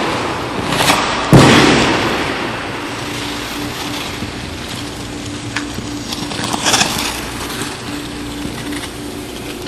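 Figure skate blades on ice: a sudden loud hit and scrape about a second and a half in, trailing off into a long gliding hiss. Fainter scraping strokes follow, strongest near seven seconds.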